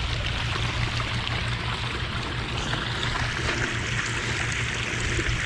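Small creek water running and trickling steadily, with a steady low hum underneath.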